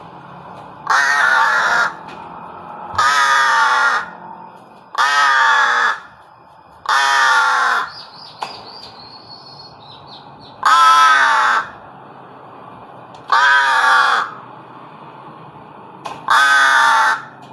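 A kept bird giving a series of loud, drawn-out calls, about seven in a row. Each call lasts roughly a second, falls slightly in pitch and comes about every two seconds, with a longer gap in the middle.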